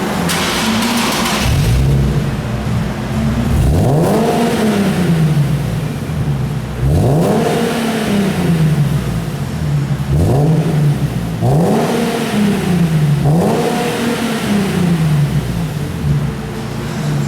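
Nissan 370Z's V6 engine revved repeatedly through its exhaust, about six quick blips of the throttle, each rising fast and settling back more slowly.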